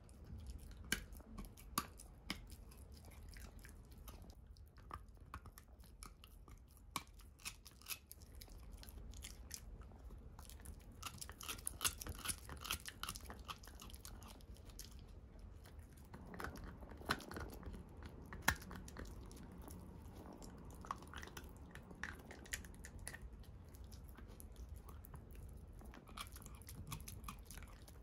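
Italian greyhound gnawing a piece of deer antler: irregular sharp crunches and clicks of teeth on antler, coming thickest in two busy spells in the middle.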